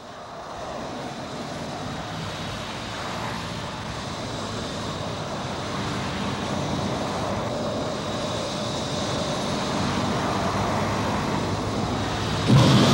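Hovertank engine roar, a film sound effect: a steady rushing, droning sound that builds gradually, then jumps suddenly louder near the end.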